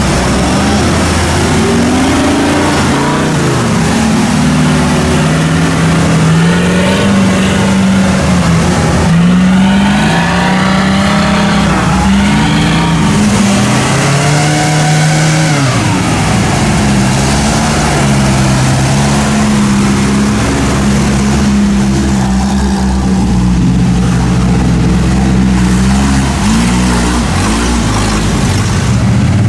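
Off-road vehicle engine revving under load, its pitch rising and falling over and over, with a stretch of higher, harder revving about a third of the way through.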